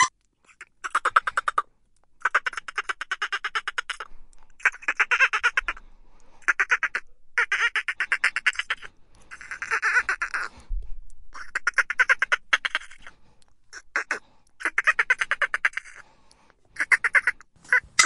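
Dolphin burst-pulse calls: about a dozen short bursts of rapid clicks run together into a buzzing chatter, each lasting up to about a second and a half, separated by brief pauses.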